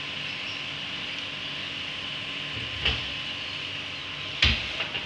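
Shredded cabbage, carrot and capsicum frying in a large aluminium pot with a steady sizzle. Two sharp knocks come about three seconds and four and a half seconds in.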